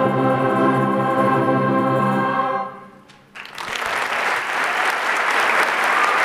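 A middle-school choir holds a final sustained chord that dies away about two and a half seconds in. After a brief hush, the audience starts applauding.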